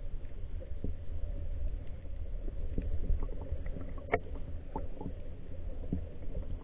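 Muffled underwater sound recorded by a submerged camera: a steady low rumble of water movement with scattered faint clicks and ticks, one sharper click about four seconds in.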